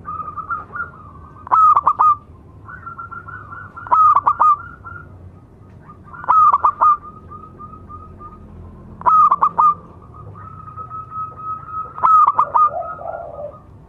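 Zebra dove (perkutut) calls: five bursts of rapid staccato cooing notes, one about every two and a half seconds, with a thin steady high tone running between the bursts.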